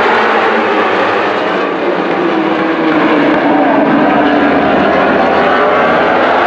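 A pack of superbike racing motorcycles running together on the circuit: many engine notes overlapping, rising and falling as the riders work the throttles.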